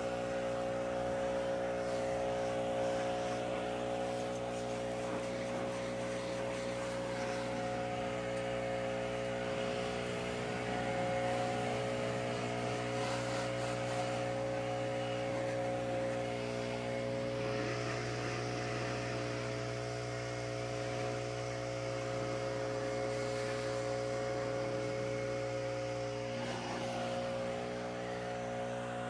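An engine running at one steady speed: a constant, unvarying hum of several steady tones that cuts off abruptly at the end.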